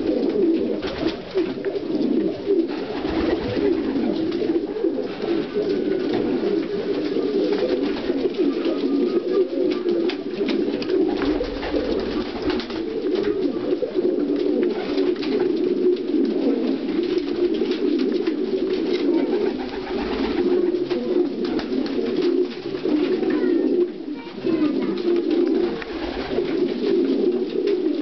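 Many domestic pigeons cooing at once in a small enclosed loft, a continuous overlapping low burble, with scattered short clicks and scuffs throughout.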